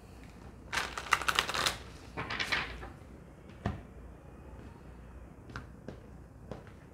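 A deck of oracle cards shuffled in the hands: two quick bursts of rapid card flicks. Then a single knock as the deck is set down on the table, and a few soft taps as cards are laid out.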